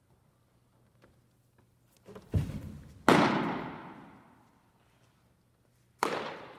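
A pitched baseball smacks into the catcher's leather mitt with a loud pop that rings on through the gym, just after a low thud of the pitcher's stride foot landing. About three seconds later a second, softer glove pop comes as the return throw is caught.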